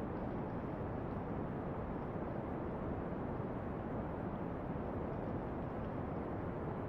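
Steady brown noise, a deep even hiss, with a few faint crackles from a campfire.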